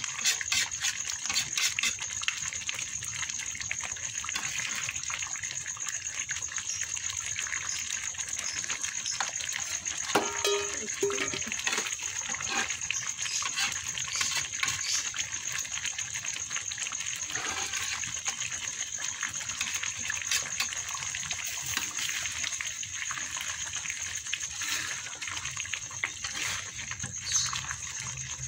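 Thick Balinese spice sauce with chicken feet and heads cooking in a wok: a steady sizzling hiss full of small crackling pops while it is stirred with a metal spoon.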